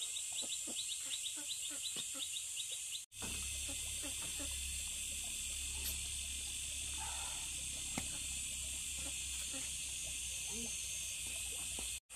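Insects chirring steadily in a high, continuous chorus, with a quick run of short clicking chirps in the first three seconds. A low rumble runs underneath from about three seconds in.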